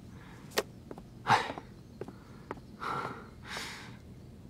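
A man's short breathy sighs and exhales, with a few faint clicks between them.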